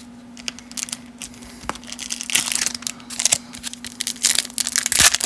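Foil wrapper of a 1991 Leaf Studio baseball card pack crinkling and tearing as it is peeled open by hand. The crinkling is sparse at first and gets busier about two seconds in.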